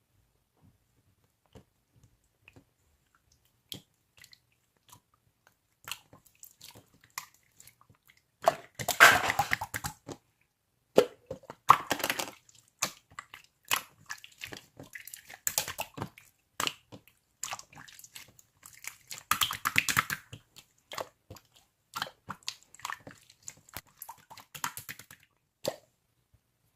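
Slime being handled by hand: scattered sticky clicks and pops, with a few denser bursts of crackling squelches.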